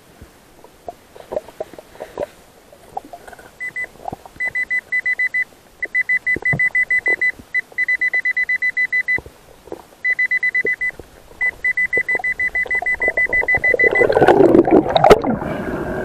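Underwater metal detector giving its target signal: bursts of rapid high beeping, about eight beeps a second, as the search coil passes over metal buried in the sand. Near the end a loud rushing noise takes over while sand is churned up around the coil.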